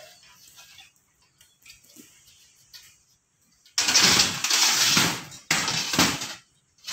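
Hand-cranked bead roller running the edge of a thin sheet-metal cladding ring through its rollers. Two loud spells of metal rolling noise: one starting about four seconds in and lasting over a second, then a shorter one right after.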